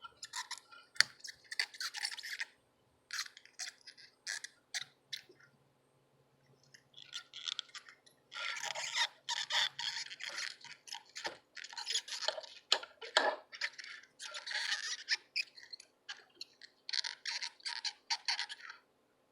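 Irregular scraping and scratching of a hand tool working at a circuit board around a stuck charging port, in rasping bouts with short pauses and a sharp click about a second in.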